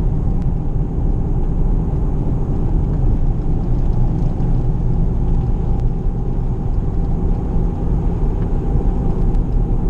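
Steady low rumble heard inside the cabin of a 2005 Ford Escape on the move, the car shaking under acceleration from a worn right-front CV axle. The inner CV boot is torn and has slung out its grease, leaving the joint dry and gritty.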